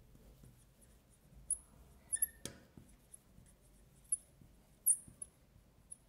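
Marker pen writing on a glass lightboard: short high squeaks every second or so as the letters are drawn, with one sharp tap about two and a half seconds in.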